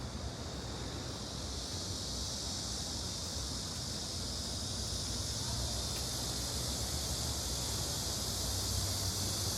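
Steady outdoor ambience beside a city stream: a high, even hiss that slowly grows louder, over a low rumble.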